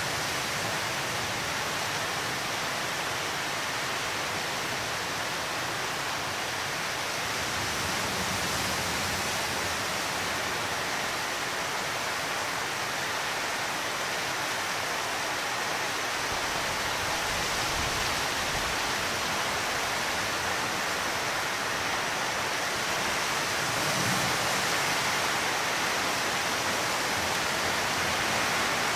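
Steady hiss of heavy rain during a thunderstorm, with a few low rumbles of distant thunder swelling under it, the strongest just past the middle.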